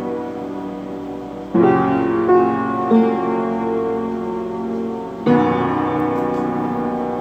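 Slow solo piano music: chords struck and left to ring, with a fresh chord about a second and a half in and another about five seconds in.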